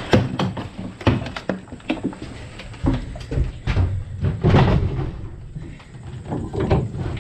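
Irregular knocks, clunks and scrapes as an Echo PB-8010 backpack leaf blower and its blow tube are handled and set down inside an enclosed equipment trailer, with no engine running.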